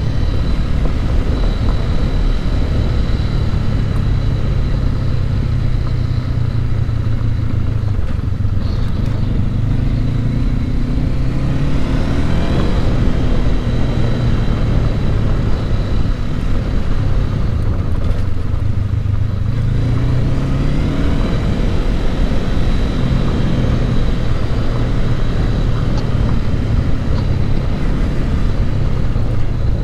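Honda CB500X's 471 cc parallel-twin engine running under a motorcycle ride on gravel, with steady wind and tyre noise. The engine eases off and then picks up in pitch twice, a little before halfway and again about two-thirds of the way through.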